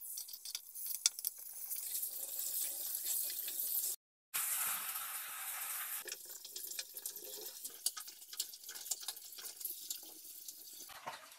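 Fish pieces frying in hot oil in a karahi: a steady sizzle with many sharp spitting crackles. The sound breaks off briefly about four seconds in.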